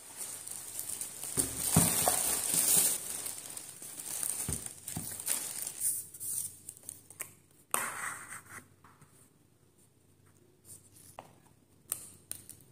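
Plastic shopping bag rustling and crinkling. This is followed by lighter crinkling and tearing of plastic wrappers, with sharp clicks of a plastic lid near the end.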